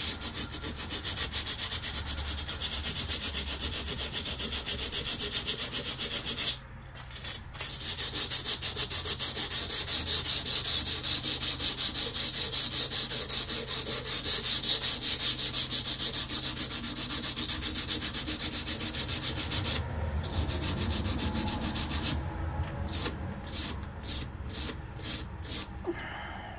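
Sandpaper rubbed back and forth by hand along the steel blade of a KA-BAR knife, stripping the black finish off it. The strokes are quick and rhythmic, with a short break about a quarter of the way in and another about three quarters in. After that come slower, separate strokes.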